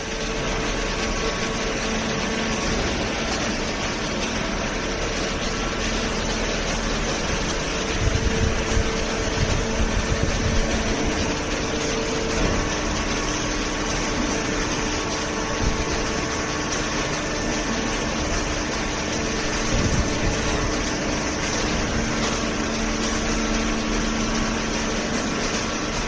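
Hydraulic waste-paper baler and its feed conveyor running, a steady mechanical drone with a faint hum, plus a few irregular low knocks from about 8 to 11 seconds in.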